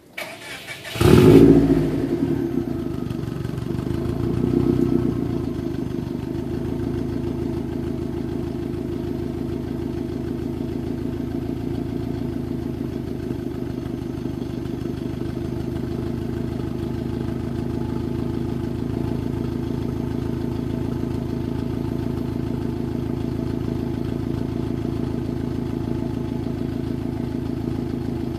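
2005 Subaru Legacy GT's turbocharged 2.5-litre flat-four starting through an Invidia Q300 turbo-back exhaust: a brief crank, a loud flare about a second in, then a steady idle with a small swell around five seconds.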